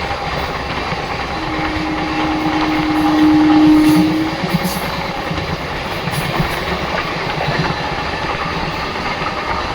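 Passenger express train running on rails with a steady rumble and wheel clatter. About a second and a half in, one long steady tone joins it, swells for about three seconds and then cuts off.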